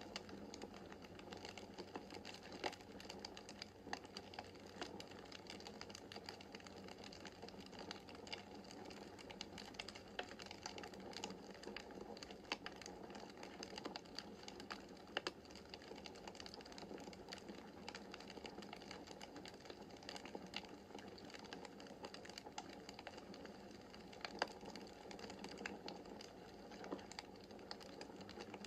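Wood fire crackling in a fireplace: a dense run of small irregular snaps and ticks over a soft steady rush of flame, with a few sharper pops.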